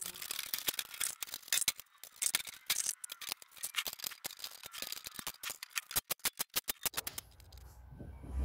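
Quick, irregular clicking and rattling of a plastic underbody panel being handled and fitted back in place under the Land Rover Discovery 3. Near the end comes a run of even clicks, about ten a second.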